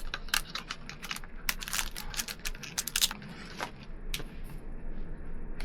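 Paper being handled: quick crinkles, rustles and light taps, busy for about the first three seconds and then sparser.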